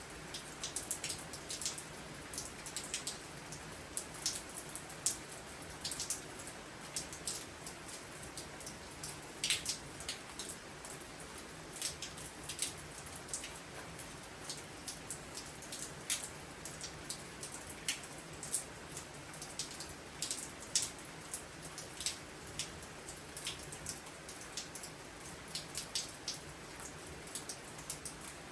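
Storm rain pouring down: a steady hiss with many irregular, sharp drops tapping on a surface close by.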